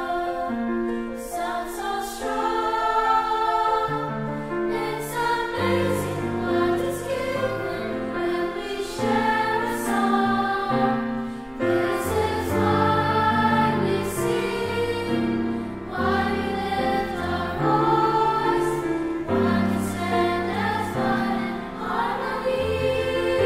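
Children's choir singing in harmony, several parts holding long notes together, with a lower line entering about four seconds in.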